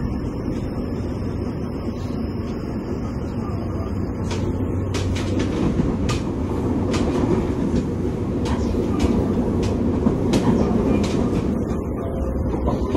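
Interior running noise of a Fukuoka City Subway 2000 series electric train: a steady low rumble, with a faint high steady tone in the first few seconds. From about five seconds in come sharp clicks of the wheels over rail joints.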